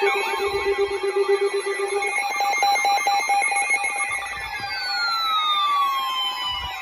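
Several electronic emergency alert tones sounding over one another. A warbling tone and steady tones run throughout, a lower pulsing tone stops about two seconds in, and two falling sweeps come in near the end: alert signals announcing an incoming severe weather warning.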